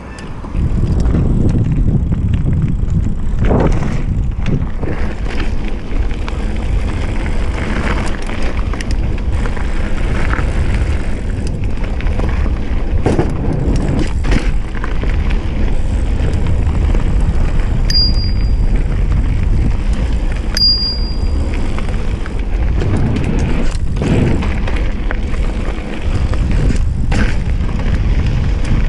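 Wind buffeting the action camera's microphone over tyre rumble from a GT Avalanche Comp hardtail mountain bike ridden fast on a dirt trail, with repeated sharp knocks and rattles from the bike over bumps. The low rumble is loud and steady throughout.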